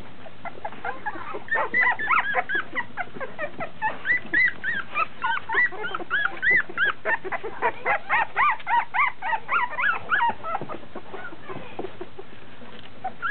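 A litter of 16-day-old puppies squealing and whimpering: many short, high-pitched cries that rise and fall, overlapping one another. They start about a second and a half in and die away at about ten and a half seconds.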